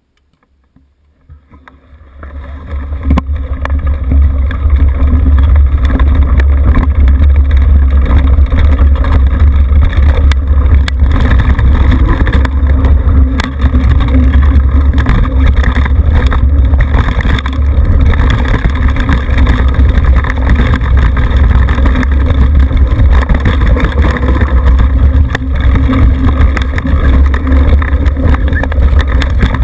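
Heavy wind rumble on the microphone over tyres rolling on a dirt trail, with scattered knocks and rattles from a Trek Remedy full-suspension mountain bike descending at speed. It builds up from near quiet over the first few seconds as the bike gets going.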